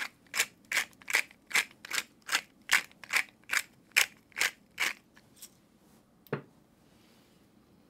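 Pepper mill grinding black pepper over the pot: about a dozen even grinding strokes, roughly two and a half a second, that stop about five seconds in. A single dull knock follows about a second later.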